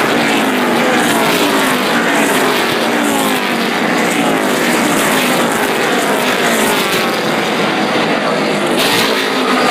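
NASCAR stock cars racing past at speed, their V8 engines at full throttle. Many overlapping engine notes each drop in pitch as a car goes by, one after another without a break, so it sounds like a continuous loud pack of cars.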